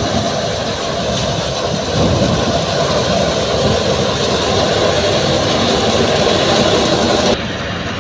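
Tractor-driven wheat thresher running steadily: a loud, dense mechanical din. Near the end it drops suddenly to a quieter, duller drone.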